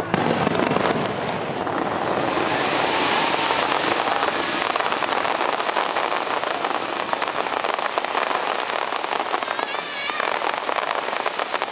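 Fireworks display: a dense, continuous crackle of many small pops from crackling stars bursting, with deeper bangs of shells mixed in.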